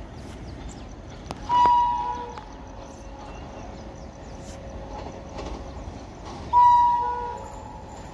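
Horn of an approaching WAP-7 electric locomotive, sounded twice. Two blasts about five seconds apart, each starting sharply and fading over about a second.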